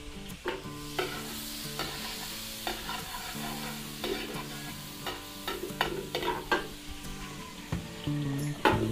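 Margarine and cooking oil sizzling in a pan, with a utensil repeatedly scraping and clacking against the pan as it is stirred; the sharpest clack comes near the end.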